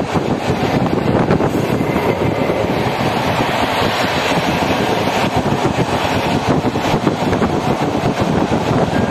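Passenger train running along the line, heard from on board: a steady rush of wheel and track noise mixed with wind buffeting the microphone.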